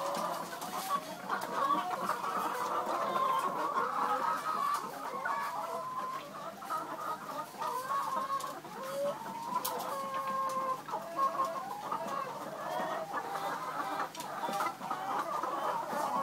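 Many chickens clucking and calling at once in a flock, a steady overlapping chatter of short calls.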